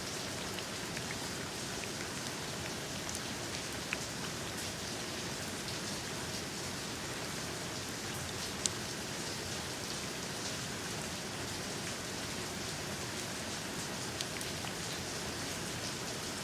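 Steady rain falling, an even hiss with now and then a single louder drop ticking, the sharpest about halfway through.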